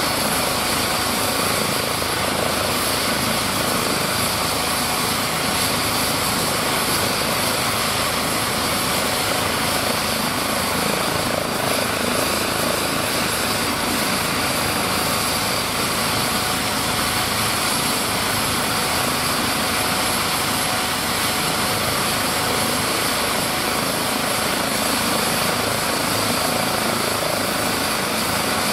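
Airbus H135 helicopter running on the ground with its main rotor and Fenestron tail rotor turning. Its twin turbine engines give a steady whine over the even rotor noise, unchanging throughout.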